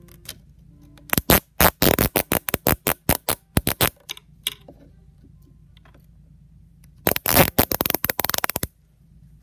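Plastic cable tie being pulled tight through its locking head: two runs of rapid ratcheting clicks. The first run lasts about three seconds; the second, near the end, is a faster, denser rattle of about a second and a half.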